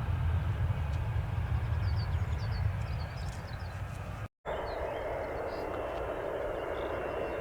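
Aircraft engine noise at an airport: a steady low rumble that cuts out abruptly a little over four seconds in and comes back as a steadier, higher hiss. Faint bird chirps sound a couple of seconds in.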